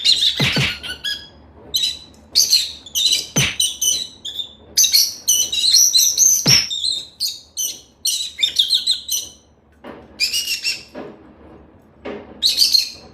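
Parrot chirping and squawking in quick runs of short calls, with three sharp knocks mixed in.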